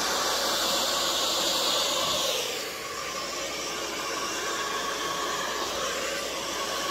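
Handheld blow dryer running with a steady rush of air as it is swept over a canvas to blow wet acrylic paint across it; the sound drops a little in level about two and a half seconds in.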